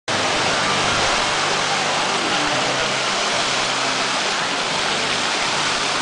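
Fountain water jets spraying and splashing into a pool: a steady rushing hiss of falling water.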